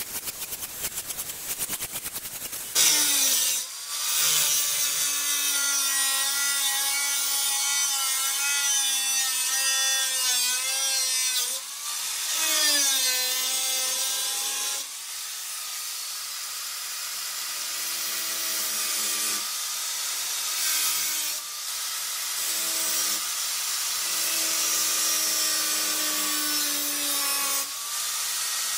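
Corded angle grinder with a cut-off disc cutting through the steel rear body panel of an old VW Beetle. It runs in several passes with short breaks, and its whine dips in pitch as the disc bites into the metal. A fast rattle fills the first two or three seconds before the cutting starts.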